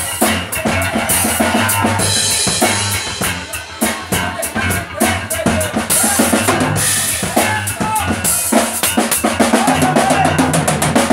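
Live band playing: a drum kit drives the music with kick, snare and rim hits, under guitar. Cymbal crashes about a second in and again around the middle.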